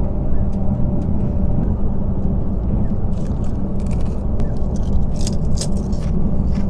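Steady low rumble of a moving passenger train heard inside the car. From about three seconds in come short sharp crackles of a plastic crisp packet being handled and a potato crisp being crunched.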